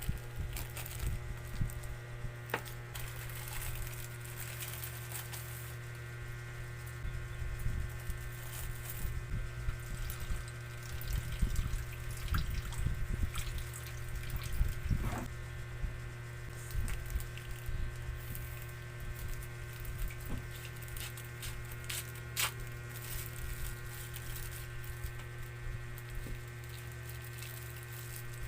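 Steady electrical hum, with scattered faint clicks and crackles over it.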